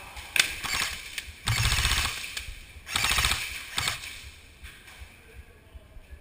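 Airsoft guns firing: a few single shots, then two short full-auto bursts of rapid cracks, about half a second each.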